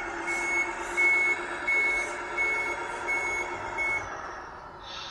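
RC truck sound module playing a reversing beeper, about six evenly spaced beeps of one pitch that stop about four seconds in, over its steady truck engine sound.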